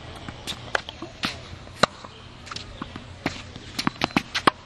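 Tennis balls struck by rackets and bouncing on a hard court: a string of sharp pops at uneven intervals, with a quick run of several near the end.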